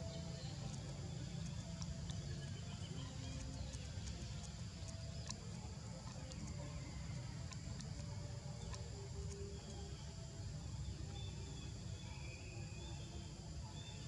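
Outdoor forest ambience: a steady low rumble under a constant high insect drone, with scattered faint clicks and a few short bird chirps near the end.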